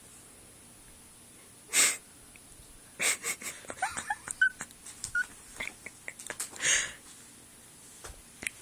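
Two short breathy bursts about five seconds apart, with a run of light taps and two brief high chirps between them, while a cat plays with a toy.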